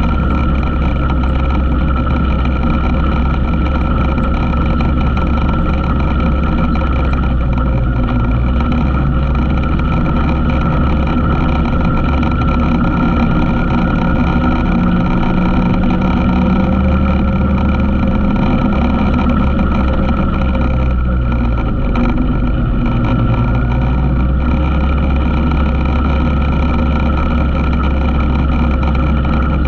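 ATV engine running steadily under way on a trail ride. Its pitch dips and rises a few times with the throttle.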